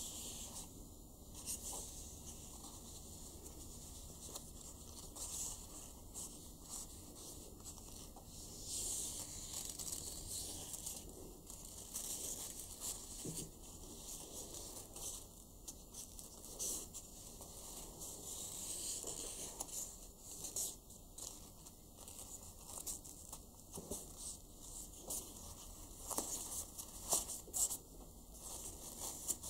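Satin gift ribbon rustling and swishing as hands fold, loop and pull it into a bow, with a few sharper ticks near the end.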